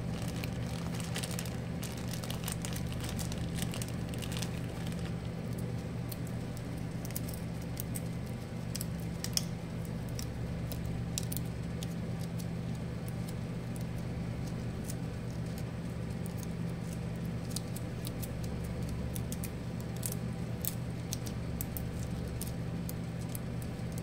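Small rubber O-rings and parts sorted by gloved fingers: scattered faint clicks and light plastic-bag crinkling over a steady low electrical hum.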